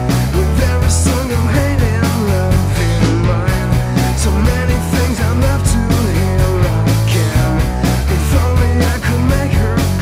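Rock music with a steady beat and singing.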